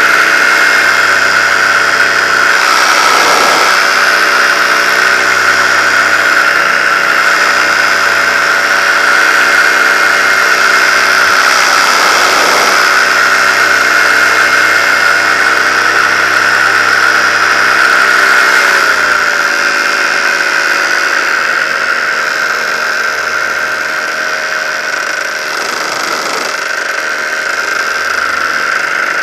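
Paramotor engine running steadily in flight, with a strong high whine over its note. About two-thirds of the way through it is throttled back: the pitch glides down and it runs a little quieter.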